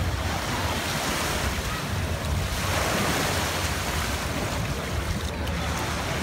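Small ocean waves washing up on a sandy beach, with wind buffeting the microphone, a steady even rush.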